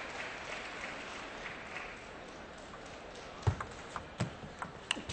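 Crowd applause fading out, then from about three and a half seconds in, a table tennis ball's sharp clicks and knocks, a few a second.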